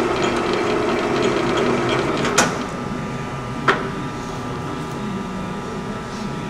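Gear-head lathe headstock running with a steady gear hum. About two seconds in the spindle stops and the hum drops. Two sharp clunks follow as the speed-change levers are shifted, over a quieter running hum.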